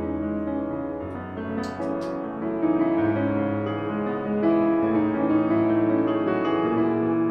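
Solo piano music with long held notes.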